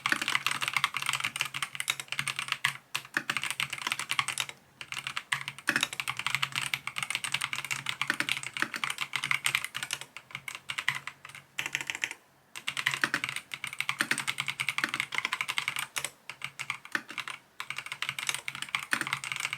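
Fast typing on an Epomaker TH80-X 75% gasket-mounted mechanical keyboard: a dense, continuous run of key clacks broken by a few short pauses.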